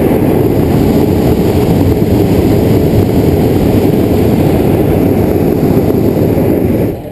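Hot-air balloon propane burner firing in one long blast of about seven seconds, heard close up: a loud, steady rushing noise that starts suddenly and cuts off abruptly. The burn heats the air in the envelope during hot inflation before takeoff.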